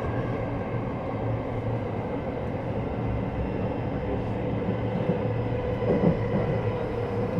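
Running sound of a JR West 321 series electric train heard inside the car: a steady low hum of motors and wheels on rail, with faint steady tones above it. A brief knock comes about six seconds in.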